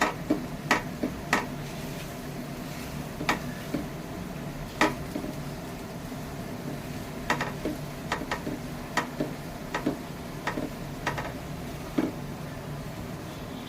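A cooking utensil knocking and scraping in a pan as boiled potatoes are mashed and mixed with spices, in irregular sharp knocks, over a steady low hum.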